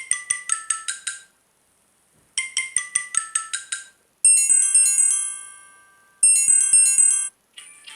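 Samsung Galaxy J1 2016 ringtones playing. A quick run of short, bright notes steps down in pitch and is played twice with a pause between. Then a louder phrase of ringing notes fades out slowly, and starts again about two seconds later before stopping sharply.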